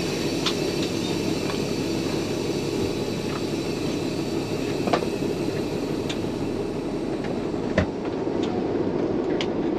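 Semi truck's diesel engine running at a steady drone, heard inside the cab, with a few short sharp clicks from the cab.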